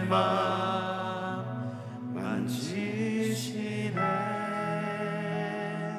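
A slow worship song: a singer holds long, wavering notes over sustained low chords, with a couple of soft sung consonants between the phrases.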